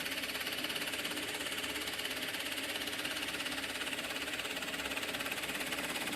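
Axminster Trade AT700PD floor pillar drill running, its 50 mm Forstner bit boring steadily down through a wooden blank. The sound is a steady run with a fast, even pulsing.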